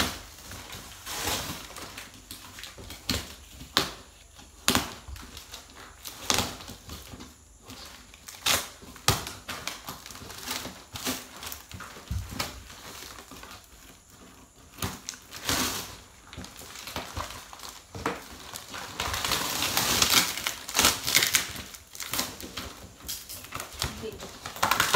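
Packing tape being cut and ripped off a cardboard shipping box, with cardboard flaps and plastic wrapping crinkling: many short sharp rips and rustles, and a longer stretch of tearing and rustling near the end.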